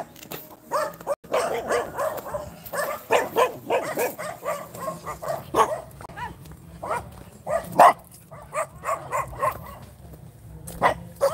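A dog barking repeatedly in short barks, irregularly spaced, with a loud bark near the end.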